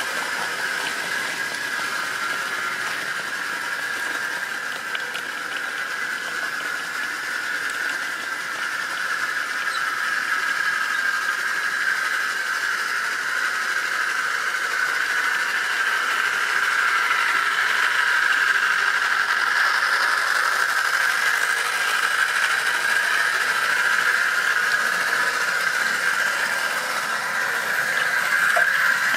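OO-gauge model train running round a curved track: a steady high whine from the locomotive and wheels, with a light rattle of the wagons' wheels on the rails, growing louder about halfway through as the train comes closer.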